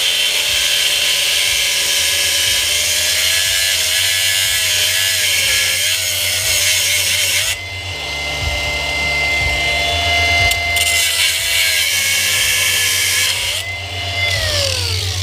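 Angle grinder cutting through the metal bands that clamp a fire hose coupling: a steady high motor whine with cutting hiss, the pitch sagging and wavering under load. It stops briefly about halfway, starts again, and spins down with a falling whine near the end.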